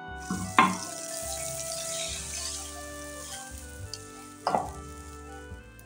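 Hot melted butter sizzling in a nonstick frying pan as a cup of water goes in: a loud hiss sets in just after the start and fades over about three seconds. Two sharp knocks come about half a second in and again at four and a half seconds, over faint background music.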